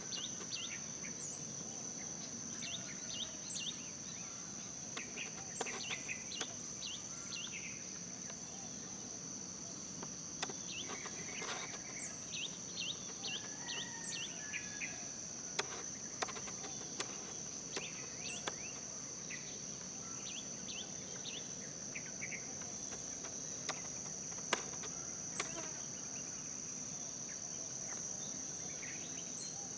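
Insects trilling in one steady, high-pitched, unbroken tone, with many short, high chirps scattered through it and a few sharp clicks.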